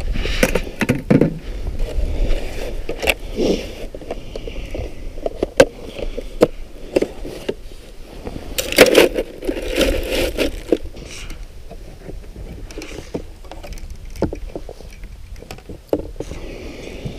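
Irregular clicks, knocks and scrapes of ice-fishing gear being handled. A metal ice skimmer scrapes slush from a freshly drilled hole, and a plastic tip-up is knocked into place over it. The scraping is densest about a second in and again around nine seconds in.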